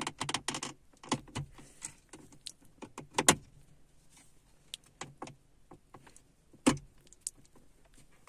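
Plastic air-vent grille frame being pushed into a Škoda Octavia dashboard: a string of sharp plastic clicks and knocks as its edge clips are worked into place, with a quick run of clicks at the start and the loudest knocks about three seconds in and again near seven seconds.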